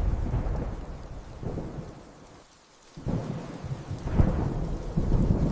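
Storm sound effects: low rolling thunder with a hiss of rain. It fades almost to nothing about two and a half seconds in, then rolls back in around three seconds and swells again a second later.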